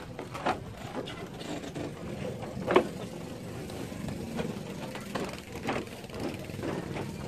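Boat engine idling: a steady low hum, with scattered knocks on top.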